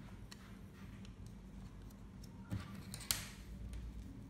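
Light plastic clicks and taps as a phone screen protector and its alignment tab are handled, with a sharp click and a brief rustling peel about three seconds in as a white release strip is pulled from the tab.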